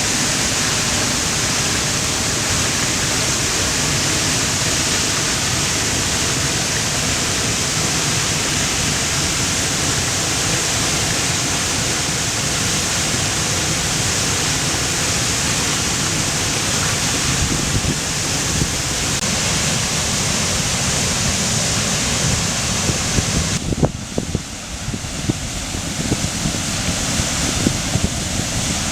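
Karpysak waterfall's falling water making a steady, loud rushing noise. About 24 s in the rush drops off sharply, leaving a low uneven rumble with a few knocks.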